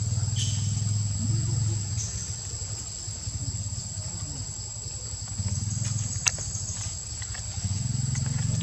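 Insects droning steadily in a high, even buzz, over a low rumble that fades and returns, with a single sharp click about six seconds in.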